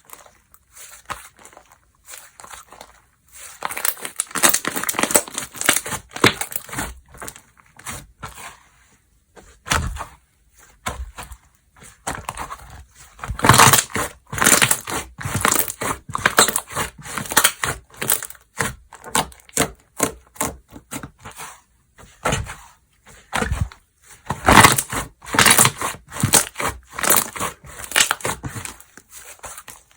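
Slime being squished and pressed by hand, in irregular bursts of crackling, popping clicks, with the loudest clusters around the middle and near the end.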